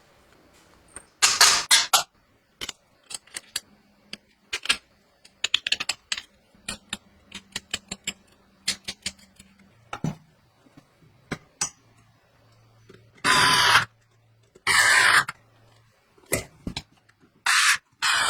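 Small parts and tools handled during assembly of a CNC laser machine: irregular clicks and taps, with a few louder noisy bursts of about half a second each, one near the start and several near the end.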